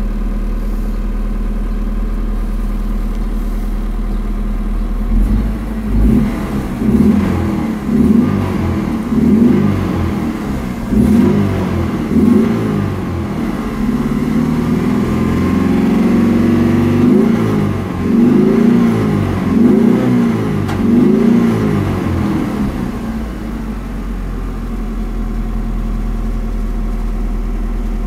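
A 2003 Mitsubishi Triton's 2.4-litre four-cylinder petrol engine, heard from inside the cab. It idles, then is revved in a run of about ten short blips with a longer held rev in the middle, then drops back to a steady idle for the last few seconds.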